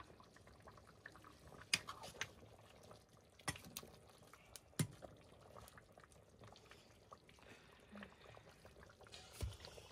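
Faint bubbling of a meat-and-potato curry simmering in a black iron wok, broken by a few sharp clicks of a metal spoon knocking the pan as it is stirred.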